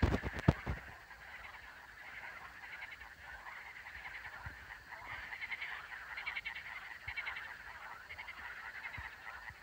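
Chorus of frogs calling together in rapid pulsed trills, swelling around the middle. A few knocks from the phone being handled come in the first second.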